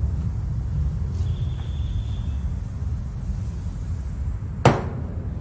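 A steady low rumble with a faint thin tone for about a second early on, then a single sharp knock near the end.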